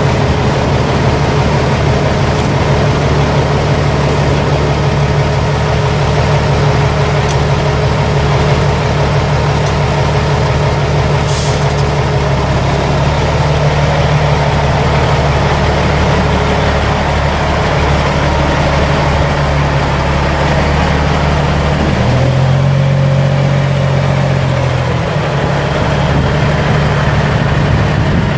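Cummins ISX 14.9-litre inline-six turbo diesel of a 2000 Freightliner FLD semi truck idling steadily. A short hiss comes about 11 seconds in, and the engine note shifts for about three seconds some three-quarters of the way through.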